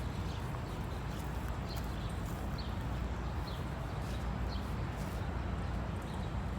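Outdoor park ambience: a steady low rumble with faint, short high chirps from small birds every second or so.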